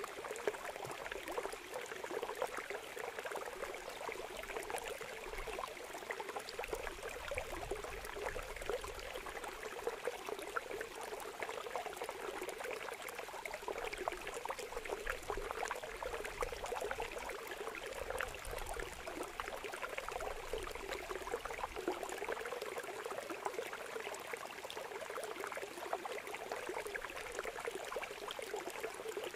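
Shallow water pouring and trickling steadily through a bamboo-slat screen into a woven basket, with many small splashes from a mass of small puti fish flapping in the flow.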